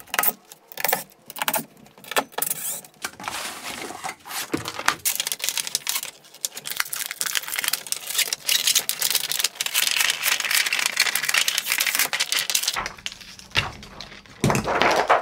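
Thin clear plastic front sheet being peeled by hand off a semi-flexible solar panel: a dense run of small crackles as the film pulls away from the cells.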